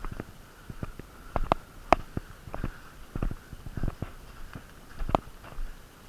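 Irregular sharp clicks and knocks, two or three a second, over heavy breathing through a blocked nose.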